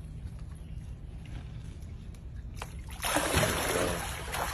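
Alligator lunging sideways at food in shallow water: a sudden loud splash and churning of water about three seconds in, lasting a second or so.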